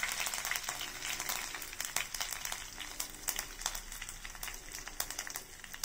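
Curry leaves and dried red chillies sizzling in hot sesame oil in a clay pot, a steady hiss with many scattered crackles and pops. The sizzle slowly dies down as the oil settles.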